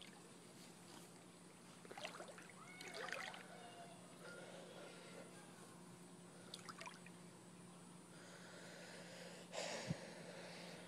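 Near-quiet: faint trickling water over a steady low hum, a few short squeaky glides about two to three seconds in, and a golden retriever's snort close to the microphone near the end.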